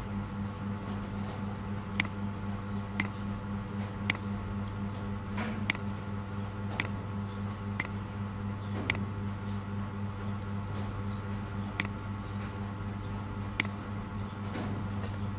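A computer mouse clicking about nine times at uneven intervals, single sharp clicks over a steady low electrical hum.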